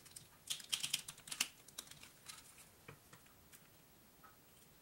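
Thin clear PVC sheet being handled and pressed into place on a glued leather frame: a cluster of light plastic clicks and crackles in the first second and a half, then a few sparse ticks.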